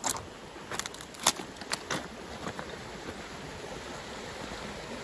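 River water rushing over a shallow riffle, a steady flowing noise. In the first two seconds it is crossed by several sharp crunches and clicks of footsteps on loose river stones.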